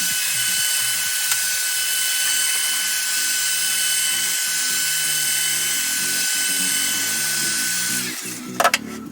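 A small electric tool's motor running with a steady hiss and thin whine, switched off about eight seconds in, followed by a couple of sharp clicks, over background music.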